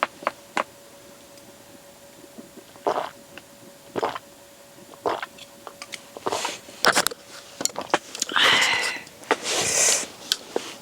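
Eating: scattered small clicks and taps, then louder chewing and slurping of noodles in the last few seconds.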